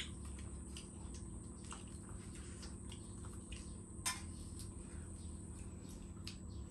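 Faint clinks and taps of tableware and beer cans on a wooden floor over a low steady hum, with one sharper tap about four seconds in as an aluminium beer can is set down.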